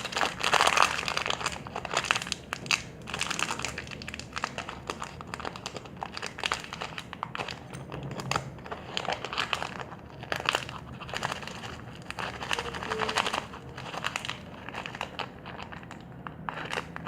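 Baking soda packet being opened and handled, its packaging crinkling with irregular crackles and small clicks throughout.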